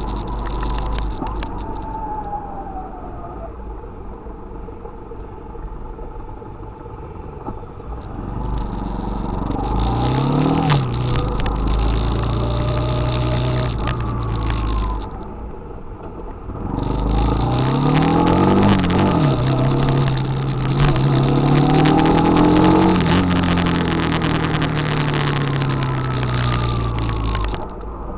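Sport motorcycles riding in a group, heard from on board one of them, their engines revving up and dropping back as they accelerate and shift through the gears. The engines are loudest in two stretches of acceleration, the second and longer one starting about halfway through.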